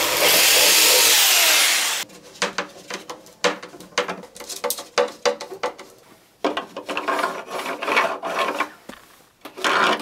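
Corded power drill running into the wooden panel, stopping about two seconds in. Then a string of knocks and scraping as a 3D-printed plastic rail is handled and set against the wood.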